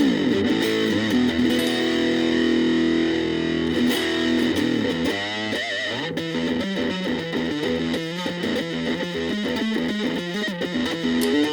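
Gaban Les Paul-type electric guitar played through a VOX Soundbox Mini amp: a chord rings out for a few seconds, then a bent, wavering note about five seconds in, then a run of quick single notes.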